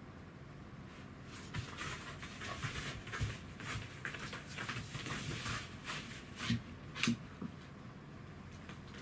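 Pembroke Welsh corgi panting quickly, in a run of short breaths, with two short, louder sounds about two-thirds of the way through.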